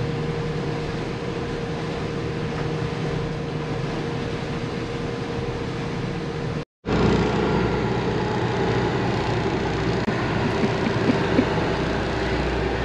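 Steady drone of a motor yacht's engines heard from aboard while cruising. About two-thirds through it drops out for an instant and comes back as a heavier, lower rumble.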